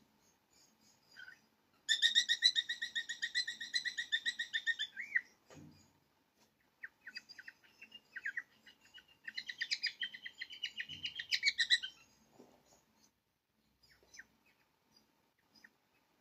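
A bird chirping: a fast trill of repeated high notes that lasts about three seconds, then scattered single chirps, and a second trill after about nine seconds.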